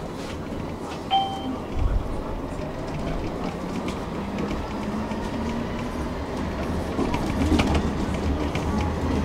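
Tram heard from inside the car as it pulls away and gathers speed: a short electronic beep about a second in, then a low rumble that sets in and grows louder, with a faint whine rising in pitch as it accelerates along the rails.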